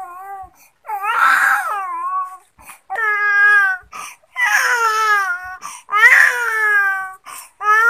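Infant crying: about five wails of about a second each, mostly falling in pitch, with short breaths between them.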